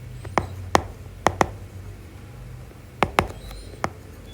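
A few sharp, short clicks and taps at irregular intervals, about seven in all, over a faint steady low hum.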